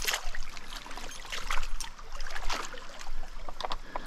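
Stream water splashing and sloshing around a landing net in shallow current, in irregular bursts, over the steady sound of the flowing stream.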